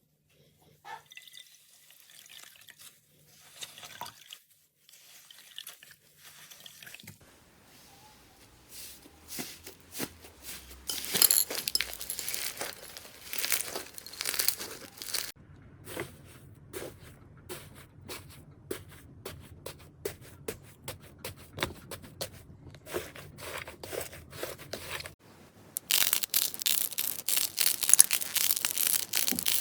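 Slime being handled by hand: soft wet squishing early on, then quick runs of sharp clicks, pops and crackles. About 25 seconds in it switches to loud, dense crackling, like crunchy slime or drying clay being crushed.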